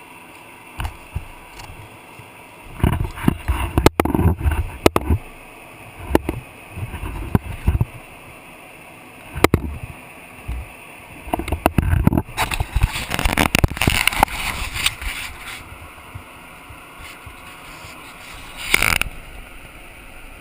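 Wind buffeting and knocks on the microphone of a camera riding along on a mountain bike, coming in irregular gusts with sharp knocks from bumps in the trail.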